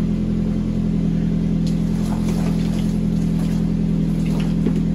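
A steady low mechanical hum of an engine or motor running, with a few faint light ticks over it.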